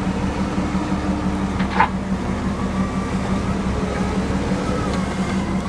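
Huddig 1260C backhoe loader's diesel engine running steadily under work, with faint wavering hydraulic whine and one brief high squeak a little under two seconds in.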